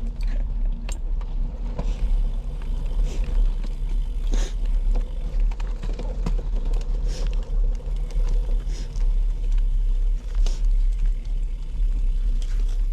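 Inline skate wheels rolling fast over pavement: a steady low rumble with scattered short scrapes and clicks.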